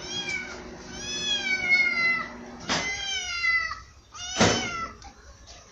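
Kitten meowing about four times, high-pitched calls that fall in pitch, one drawn out longer than the others, with a couple of short knocks between them.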